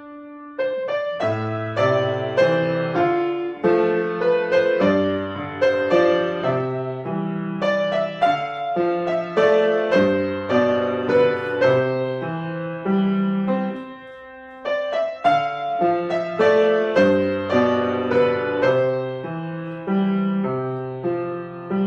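Solo piano playing a piece, with notes struck and left to ring; the music pauses briefly at the start and again about two-thirds of the way through before going on.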